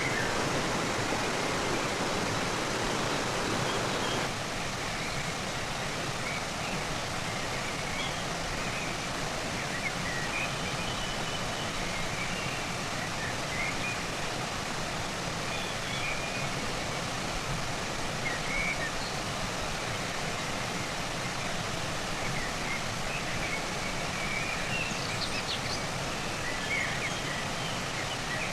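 Rushing stream water, a steady even rush that is a little louder for the first four seconds, with faint high chirps now and then.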